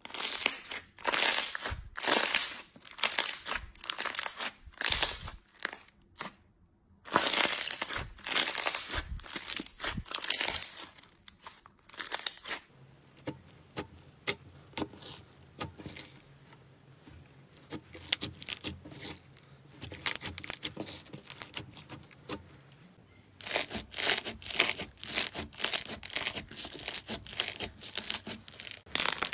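Hands squeezing and kneading slime at close range: a glossy pink slime gives sticky popping and squelching clicks, then after a quieter spell a bumpy yellow textured slime gives quick, dense crackling as it is pressed and torn apart.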